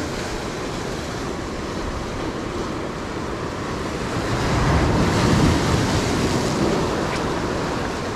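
Ocean surf washing against a concrete tetrapod breakwater, swelling louder for a couple of seconds a little past the middle, with wind buffeting the microphone.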